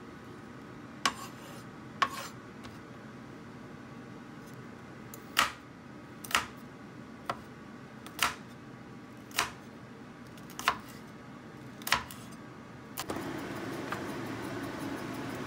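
Chef's knife chopping on a bamboo cutting board: single sharp knocks about once a second as garlic and green chilies are cut. A steady low hum runs underneath and grows louder near the end.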